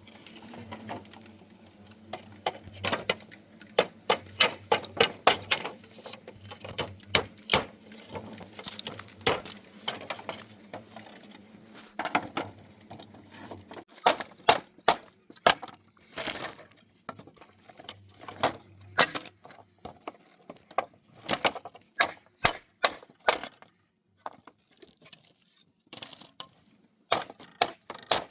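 Hand work on timber: many sharp knocks and taps on wood in quick runs with short pauses, with a faint low hum under the first half.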